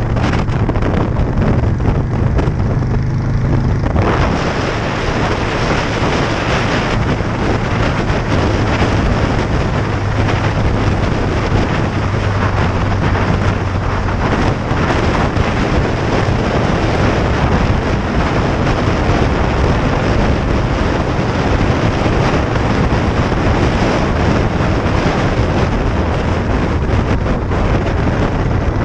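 Wind buffeting the microphone of a camera mounted on a chopper motorcycle riding at road speed, with the bike's engine running steadily underneath. The wind noise grows louder about four seconds in.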